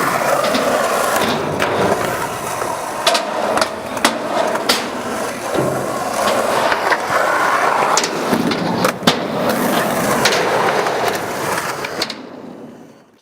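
Skateboard rolling, with a steady wheel noise and repeated sharp clacks of the board and trucks hitting. It fades out near the end.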